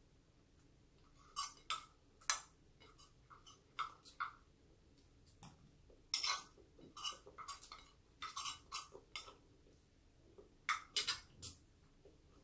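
Close-up eating sounds: chewing and mouth clicks in short clusters, with a few clinks of a metal fork on a plate.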